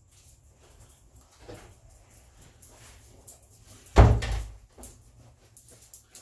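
A door shutting with one loud thud about four seconds in, among quieter knocks and clicks of handling.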